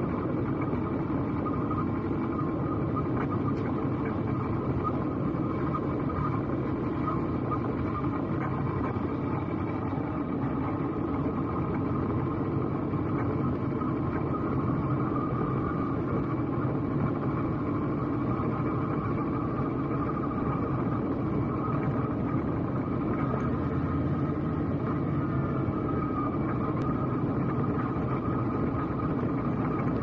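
Motorcycle engine running steadily while the bike is ridden, with road noise.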